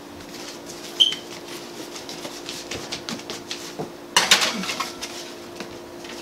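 A foil-lined metal baking sheet of cookie dough being put into an oven: a sharp clank about a second in, light knocks, then a burst of metal rattling about four seconds in as the pan slides onto the oven rack. A steady low hum runs underneath.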